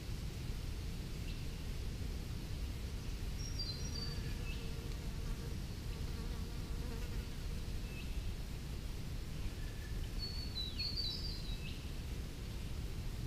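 A flying insect buzzing, with a few short high bird chirps about four seconds in and again near the end, over a steady low rumble.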